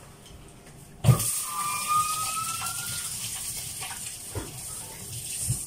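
Liquid pouring or running into a container: a hiss that starts suddenly about a second in and runs for about four seconds, with a faint tone rising in pitch over its first two seconds.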